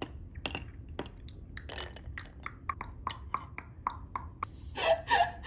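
A person drinking in a run of quick gulps, about three a second, with light clicks and lip sounds around it.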